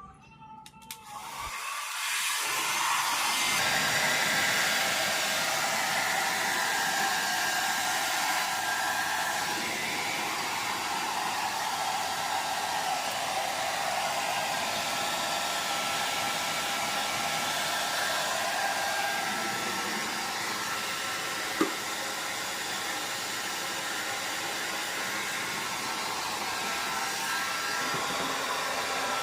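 Hair dryer switched on about two seconds in, then running steadily as it blows dust out of a sliding window track. A single sharp click comes about two-thirds of the way through.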